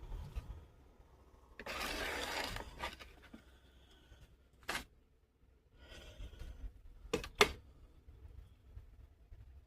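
Coffee maker hissing and sputtering in a burst about two seconds in, struggling because it needs descaling, followed by a few sharp clicks and knocks.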